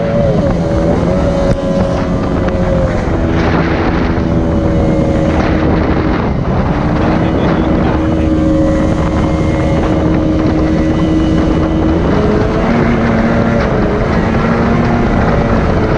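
Jet outboard motor of an aluminium jon boat running at speed, its pitch stepping down a couple of times and shifting again near the end, over the rush of wind and water.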